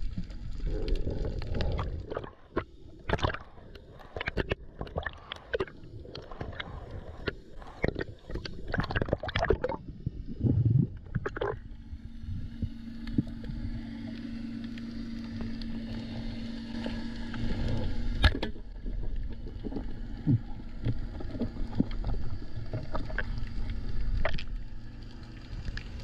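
Underwater sound picked up by a diver's camera: irregular sharp clicks and knocks over a gurgling water background, then from about halfway a steady low hum that lasts several seconds.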